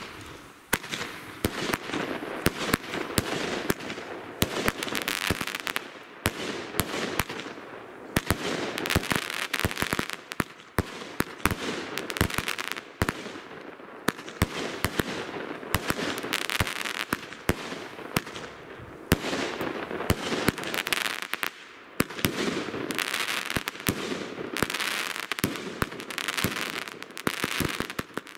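Hofer Poseidon consumer firework battery (cake) firing, with shell after shell launching and bursting in rapid, uneven succession over a continuous hiss of burning stars.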